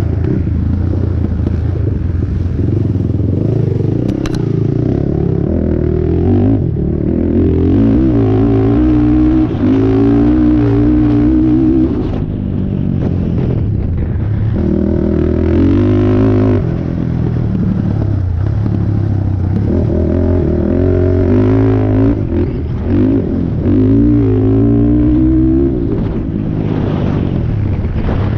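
A 450R sport quad's single-cylinder four-stroke engine revving hard under racing load, its pitch climbing and dropping again and again as the rider accelerates, shifts and backs off.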